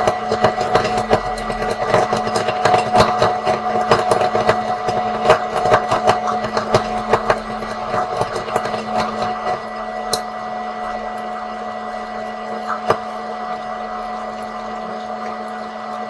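Popcorn kernels popping rapidly over a steady electric hum. The pops thin out after about ten seconds to a few scattered ones, as the batch nears the end of popping.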